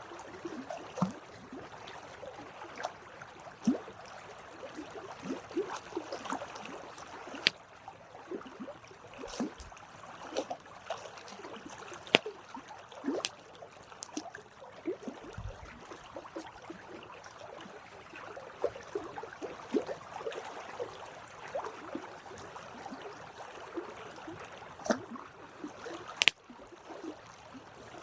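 Campfire burning: burning wood crackles and pops irregularly over a steady hiss, with a few sharper snaps standing out, the loudest about 12 and 26 seconds in.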